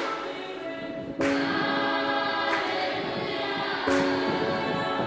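Background music: choir-like voices holding chords, each new chord starting on a sharp hit about every second and a half.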